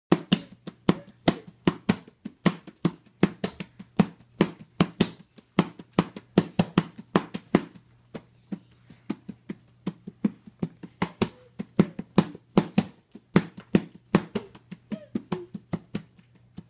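A small child drumming on a hardcover book with his open hands: quick, uneven slaps, about three or four a second, softer for a stretch around halfway. A steady low hum sits underneath.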